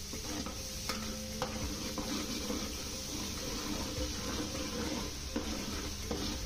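Chopped onions sizzling as they fry in a pot of hot oil, stirred with a spoon that knocks against the pot now and then.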